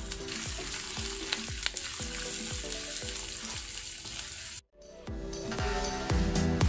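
Diced onions and green chillies sizzling in hot sunflower oil, stirred with a wooden spatula, over background music with a steady beat. The sizzle cuts off suddenly about two-thirds of the way in, and the music then comes back louder.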